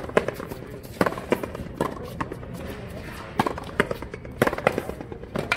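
Frontenis rally: the small rubber ball cracking off the players' racquets and the concrete fronton wall and floor, about a dozen sharp hits at an irregular pace, often in quick pairs.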